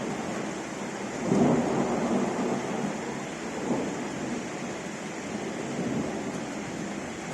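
Thunder rumbling over steady rain. A roll of thunder swells about a second in and dies away over the next few seconds.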